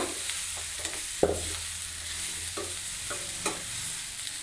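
Chopped banana blossom sizzling as it is sautéed in hot oil in a metal kadai, with a metal ladle stirring it and knocking and scraping against the pan several times. The sharpest knocks come at the very start and about a second in.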